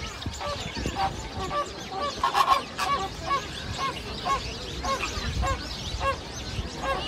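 A flock of American flamingos honking: short calls about three a second, one after another, busiest about two and a half seconds in.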